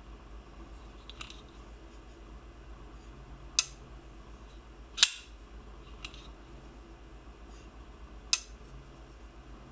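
Shirogorov F95R19 titanium frame-lock flipper knife, its blade snapping open and shut in the hand: sharp metallic clicks. Three are loud, the loudest about five seconds in, and two fainter clicks fall between them.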